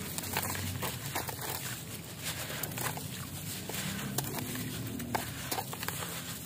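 Hands crumbling a dry, porous black concrete chunk: dense gritty crunching and crackling, with crumbs and dust dropping into a tub of water.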